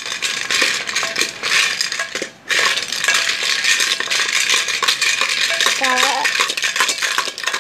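Plastic toy building blocks stirred with a wooden spatula in a metal cooking pot, rattling and clattering continuously against the metal, with a short break about two and a half seconds in.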